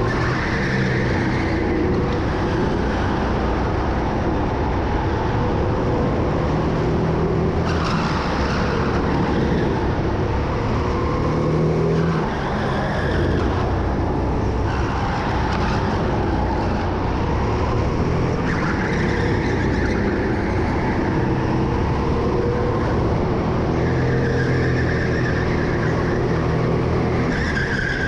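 Rental go-kart racing on track, heard on board: a continuous motor note that rises and falls every couple of seconds as the kart accelerates and lifts through the corners.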